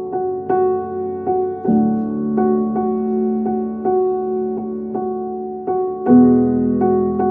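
Background music: gentle piano or electric piano playing repeated notes at a steady pulse, with a new chord about two seconds in and again near the end.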